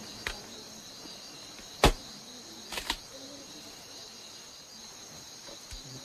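Steady high-pitched chorus of insects, broken by a few short sharp clicks, the loudest about two seconds in and a quick pair just before three seconds.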